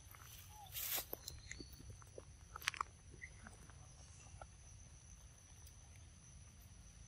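A macaque biting into a ripe mango and chewing the flesh: a louder bite about a second in, then small wet clicks and smacks that thin out after about three seconds.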